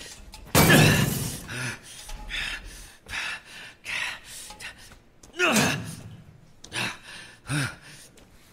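A person's sharp gasps and strained grunts of exertion, several in a row, with a loud breathy burst about half a second in, as of someone straining to kick or pull loose metal cell bars.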